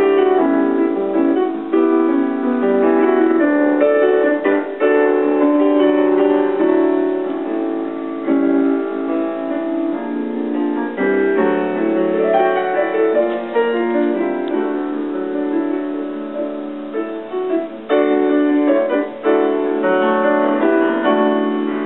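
Background piano music, a continuous run of notes throughout.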